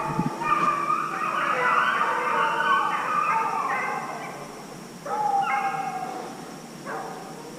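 A pack of deer hounds baying on a race, several voices overlapping in long, wavering cries. The chorus fades about four seconds in, then picks up again about five seconds in and trails off.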